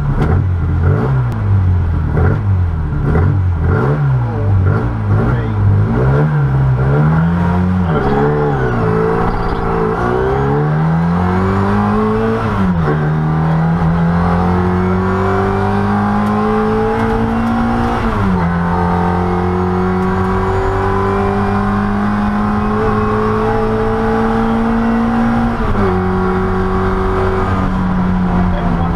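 Classic Mini rally car's four-cylinder A-series engine, heard from inside the cabin: revs blipped rapidly up and down while the car is held at the start, then it launches about ten seconds in and pulls hard through the gears, pitch climbing and dropping at three upshifts.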